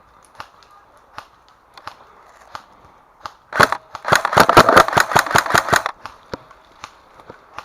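Airsoft gun firing a rapid string of about a dozen sharp shots over roughly two seconds, starting about three and a half seconds in. Before and after the string there are light, regular ticks about every three-quarters of a second.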